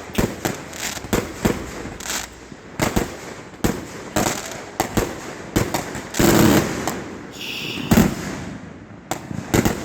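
Aerial fireworks exploding overhead in a rapid, irregular string of sharp bangs, with heavier booms about six and eight seconds in.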